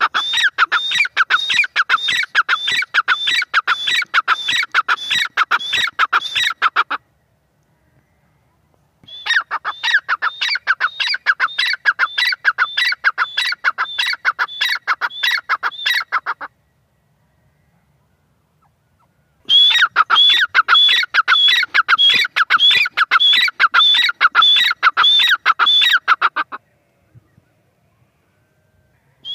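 Grey francolin (teetar) calling: three bouts of rapid, evenly repeated shrill notes, each about seven seconds long, with pauses of two to three seconds between them.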